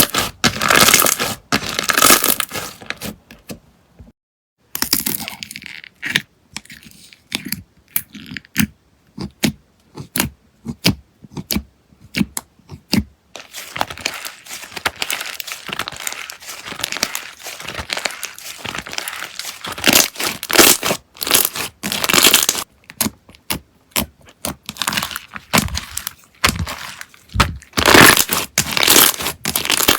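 Slime being squeezed, poked and stretched by hand, giving dense crackling and popping clicks from air pockets in the slime. The sound cuts out briefly about four seconds in, then carries on in bursts.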